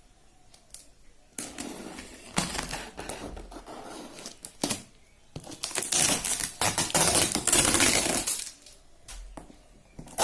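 Packaging being handled and opened: rustling and scraping with scattered clicks, loudest for a couple of seconds about six seconds in.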